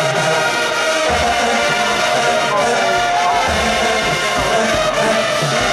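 Marching band playing loudly: held brass notes over a steady drum beat.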